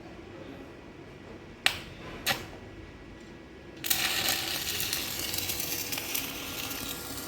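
Two sharp taps, then about four seconds in an arc is struck and a stick weld runs with a steady crackling sizzle: a 3.2 mm E6013 electrode burning on a portable welding machine.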